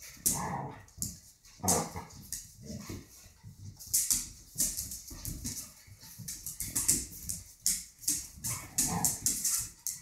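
Dogs play-fighting: short growls and yips, with scuffling paws and claws on a tile floor that come thick and fast from about four seconds in.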